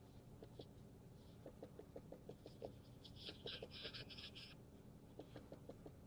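Faint handling noises: scattered light clicks, with a short run of scratchy rustling about three seconds in.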